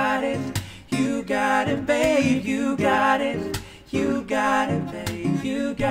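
Male voices singing a sustained, sliding vocal line without clear words over a strummed acoustic guitar.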